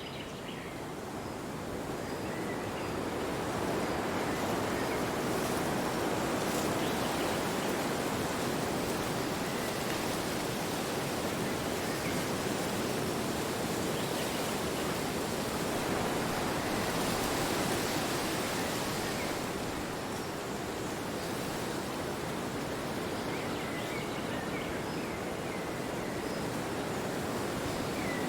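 Wind blowing steadily, with a slow swell and ease in strength.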